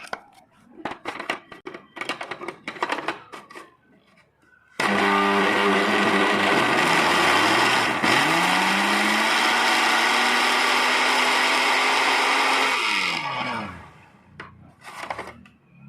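A few seconds of clicks and crinkling from handling, then a mixer grinder switched on with a diary's paper in its jar. It runs loud and steady for about eight seconds, its motor pitch dipping and climbing back a few seconds after the start as the load catches, then it is switched off and whirs down with a falling pitch.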